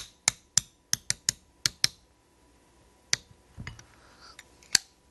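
Small hammer tapping the pivot hinge pin into a Thompson Contender pistol frame: about eight quick, sharp metallic taps in the first two seconds. Later come two more single taps, with some handling of the gun between them.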